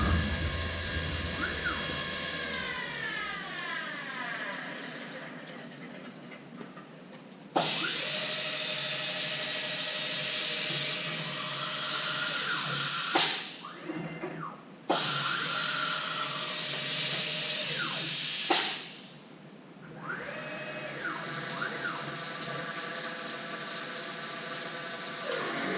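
CNC milling machine facing a part with a 2-inch face mill at a programmed 20,000 RPM: the machine's whine falls in pitch a few seconds in, then two loud hissing cutting passes of about five and four seconds follow, each ending in a sharp squeal, before the steady machine whine returns.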